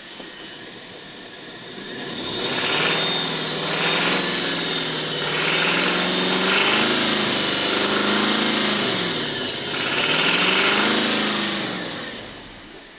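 Nissan Patrol Y62 Platinum's 5.6-litre V8 engine revving up and down several times, climbing about two seconds in and settling back near the end, with a steady high-pitched whine over the revs, the noise the owner is showing.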